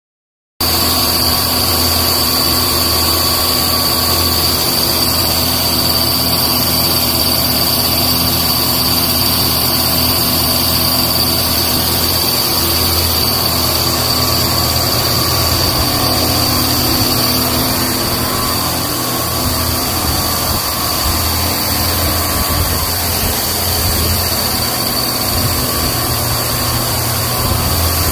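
Odour-removal fogging machine running steadily as it sprays deodorising mist, a continuous motor hum with a high, steady whine over it, starting abruptly about half a second in.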